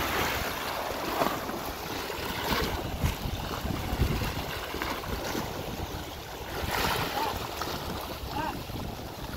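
Sea water washing against a rocky shore and a swimmer splashing, with wind rumbling on the microphone.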